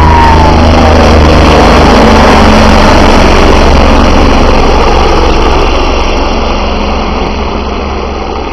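Helicopter rotor and turbine running loud as it departs, a whine falling in pitch near the start, then the sound slowly fading as it flies off.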